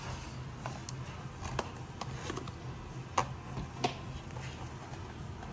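A few light taps and clicks from a baby's toy being handled, scattered irregularly over a low steady hum.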